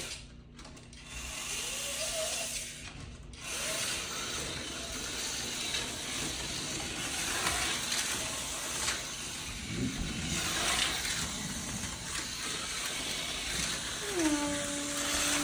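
Tyco HO-scale slot car running laps on plastic track: a steady whirring rattle of its small electric motor and gears. It starts about half a second in and breaks off briefly around three seconds in.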